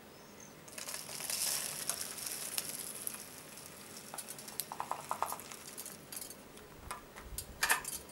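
Mixed squirrel and chipmunk feed (nuts and seeds) poured from a plastic scoop into a feeder's plastic tube. It starts about a second in as a dense rushing patter, thins to scattered rattles and clicks, and ends with a few sharper clicks.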